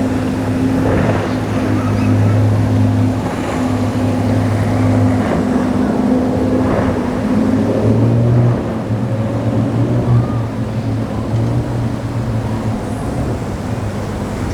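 Motorboat engines droning steadily as a boat runs through the inlet, a low even hum over the hiss of water and wind; the engine note shifts a little about eight seconds in.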